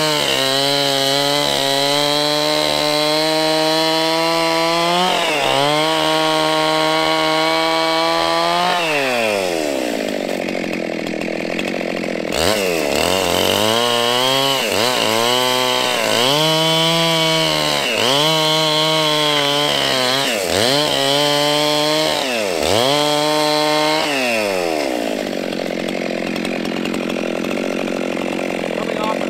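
Gas chainsaw at full throttle, cutting through a dead maple log, its pitch sagging now and then under load. About nine seconds in it drops to idle, revs back into the cut about three seconds later with the pitch dipping and recovering every couple of seconds, and falls back to idle near the end.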